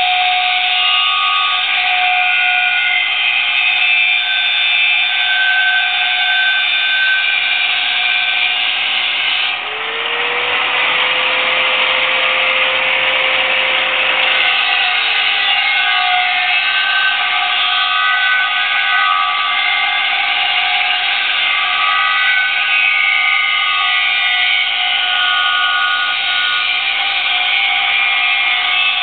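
Angle grinder with a grinding disc working the surface of a large steel dyno roller. The disc screeches on the steel with several steady high ringing tones. About ten seconds in, the screech gives way for about five seconds to a rushing noise with a lower hum that rises and falls, then the grinding resumes.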